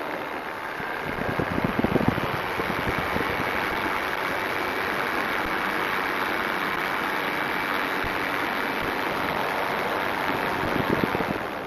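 Steady rush of wind and engine noise from a Dragonfly tow plane in flight, on its way down after a glider tow, with a faint steady whine running through it.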